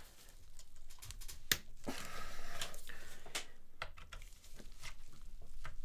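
Screwdriver clicking and scraping against a stubborn Phillips-head screw in a cassette deck's metal chassis, with a few sharp ticks spread irregularly through and a short rasping stretch about two seconds in. The screw is so tightly fastened that it resists turning.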